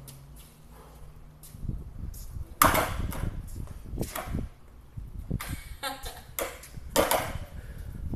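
Skateboard wheels rolling over a concrete floor, with several sharp clacks of the board.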